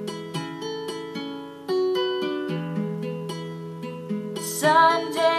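Instrumental intro of a song, with strummed acoustic guitar, played back through a small repaired speaker fitted with a 2-way crossover network and driven by an EL34 valve amplifier. A voice starts singing near the end.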